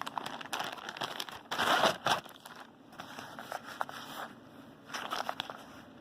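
Plastic Ziploc bag crinkling and rustling as it is handled and opened, with a dense loud burst of crinkling about one and a half seconds in, then quieter scattered rustles.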